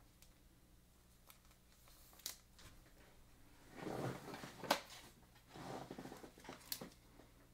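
Faint handling of trading cards and plastic card holders: a few light clicks and two short rustles, about four and six seconds in, over a low steady hum.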